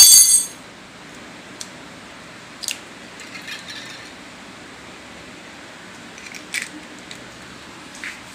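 A steel spoon clinks down with a short metallic ring, the loudest sound, right at the start. Then come a few small clicks and a faint crackle of an eggshell being pulled apart over a steel bowl.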